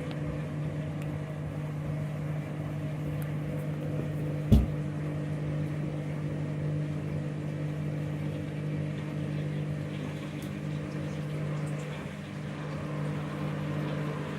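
Washing machine drain pump running with a steady low hum as the machine drains during a rapid wash. One short thump about four and a half seconds in.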